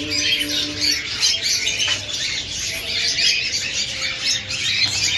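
Many caged pet birds chirping and squawking at once, a dense, continuous chatter of short high calls.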